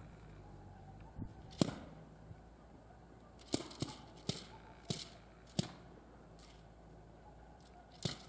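A series of about seven short, sharp cracks, irregularly spaced. The loudest comes about a second and a half in, and a quick cluster follows between about three and a half and six seconds in.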